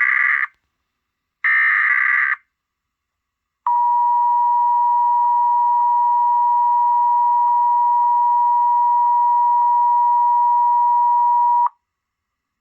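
Emergency Alert System activation tones. The end of one SAME header data burst is followed about a second later by another full one-second burst of digital data noise. Then comes the EAS two-tone attention signal, a steady dual-tone blare lasting about eight seconds that cuts off cleanly, opening a practice/demo warning.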